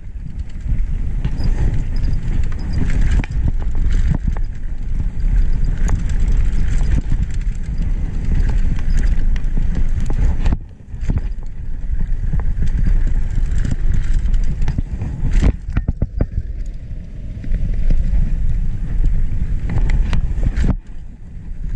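Mountain bike descending a dirt downhill trail, heard from a bike- or helmet-mounted action camera: heavy wind buffeting on the microphone and the rumble of tyres on dirt, with frequent rattles and knocks from the bike over bumps. The noise drops away briefly twice, about eleven seconds in and near the end.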